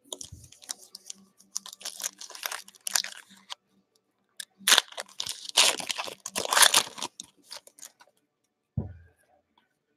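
Wrapper of a 2019-20 Panini Prizm basketball retail pack crinkling and tearing as it is ripped open by hand, in two bursts of crackling, the second one louder.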